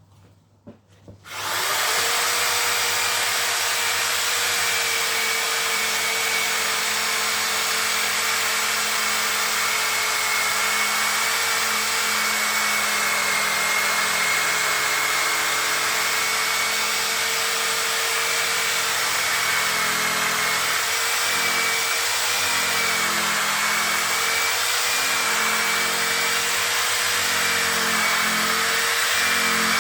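Electric drill with a sanding or polishing pad, switched on about a second and a half in and then running steadily with a constant motor whine, working the scratched plastic of a headlight lens.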